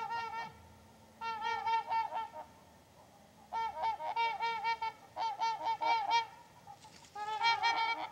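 Trumpeter swans honking: five bursts of quick repeated honks, about five or six notes a second, each burst lasting around a second with short pauses between.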